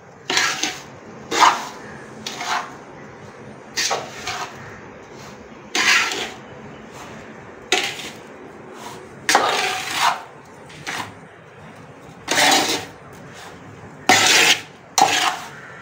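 Metal spatula scraping against a large aluminium pot while stirring a dry, crumbly mixture of roasted semolina and sugar. The scrapes are irregular, one every second or two, some short and some drawn out.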